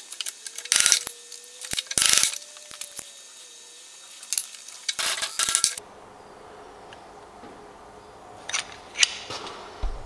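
Metal parts clinking and clanking: a handful of sharp knocks over the first six seconds, then a steady low hum with a few more clicks near the end.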